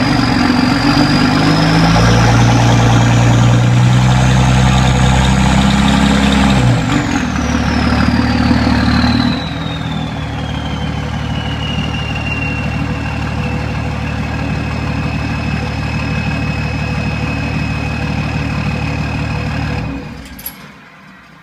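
5.9 Cummins diesel with an HE351 turbo on a billet compressor wheel, held at raised revs while the turbo whistles, rising in pitch. The engine drops back toward idle and the whistle glides down to a lower, steady tone. About twenty seconds in, the engine shuts off and the whistle fades.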